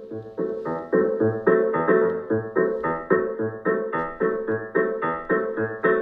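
Piano music with a steady pulse of about four notes a second, played through an Apple HomePod mini smart speaker during its first sound test; it gets louder about a second in.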